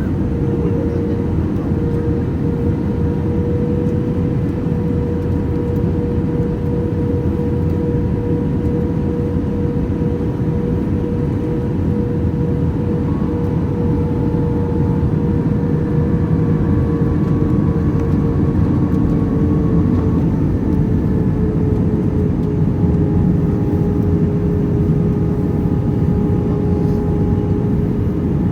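Airplane engine noise during a landing, a steady loud rush with a whine that slowly drops in pitch over the second half.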